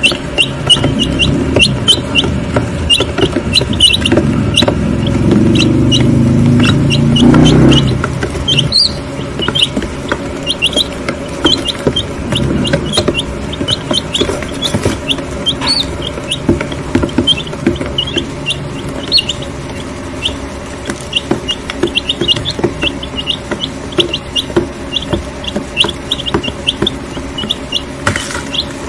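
Week-old White Leghorn chicks peeping, a dense run of short high chirps, with sharp clicks of beaks pecking feed on the tray. A louder low rumble builds about four seconds in and cuts off suddenly about eight seconds in.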